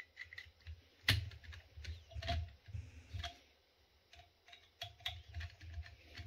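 Screwdriver tightening a screw in the top cover of a pressure vacuum breaker: a run of irregular light clicks and ticks, with a short pause about halfway through.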